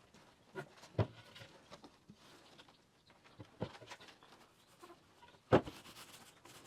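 A few faint, scattered taps and clicks of small objects being handled, the loudest about five and a half seconds in.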